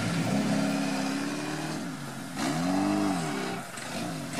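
LuAZ 4x4's engine running as the vehicle drives off under load, steady at first, then revving up and falling back once about halfway through.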